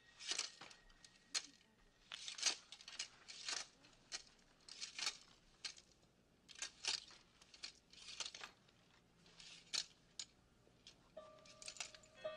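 Costumes on hangers being handled and pushed along a rack: irregular rustles of fabric with light hanger clicks, one every half second or so. Soft music comes in near the end.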